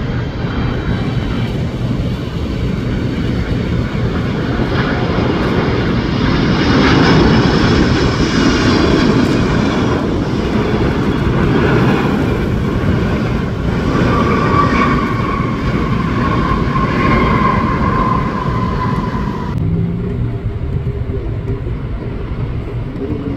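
Boeing 777 twin-engine jet airliner landing: a steady, loud engine rumble with a whine that falls gradually in pitch during the last several seconds. About three-quarters of the way in the sound cuts abruptly to a quieter, duller jet rumble from another airliner, a Boeing 787 on the runway.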